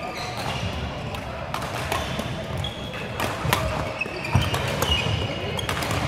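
Badminton rally: sharp racket-on-shuttlecock hits at irregular intervals, about one a second, with short high squeaks of shoes on the court floor.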